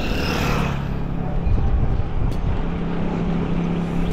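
A motor vehicle's engine humming steadily close by, over a low rumble of wind on the microphone while riding; a brief hissing rush at the start.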